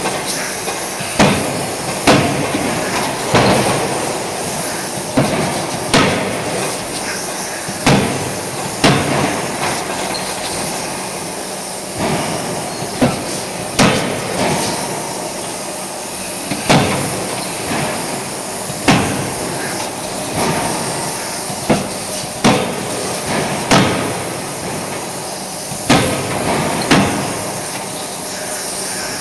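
CNC die forging hammer striking hot workpieces: sharp impacts at uneven intervals of about one to two seconds over the steady din of a forging line.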